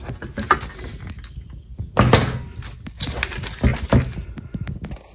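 Handling noise from a Range Rover L322 air suspension compressor assembly being worked on: metal parts and its bracket rattling and scraping, with several sharp knocks about two seconds in and again a second or two later.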